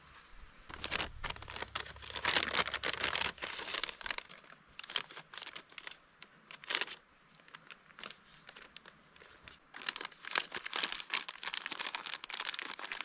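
Plastic MRE food pouches and packaging crinkling and rustling as they are handled, in irregular bursts with a quieter stretch in the middle.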